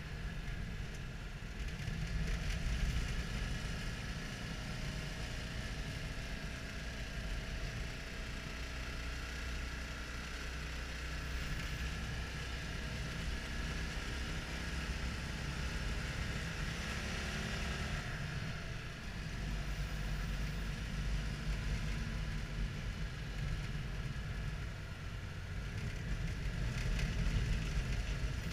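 Citroën Dyane 6's small air-cooled flat-twin engine running under way, heard from inside the cabin along with road noise. The engine note climbs and then drops sharply about two-thirds of the way through.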